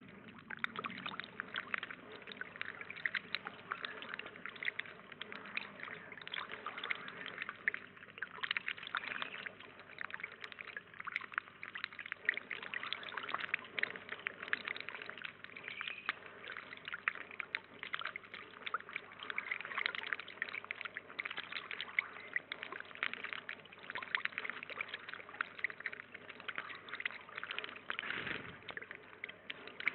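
A thin stream of water pouring from a spout into a shallow pond: a steady splashing trickle.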